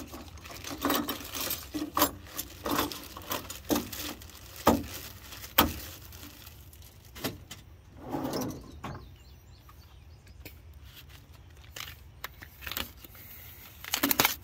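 Hand tools and their packaging being handled on a metal truck bed: a string of light clinks and knocks as the tools are set down and shifted, then a longer scrape about eight seconds in as a toolbox drawer is pulled open, and a few more clicks near the end.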